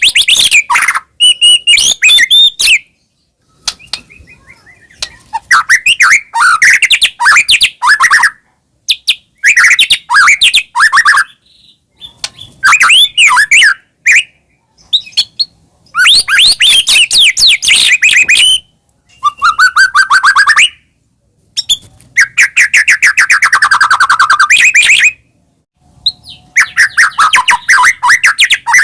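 White-rumped shama (murai batu) in full song: loud phrases of rapid whistles and chattering notes, each lasting a second or a few, with short pauses between.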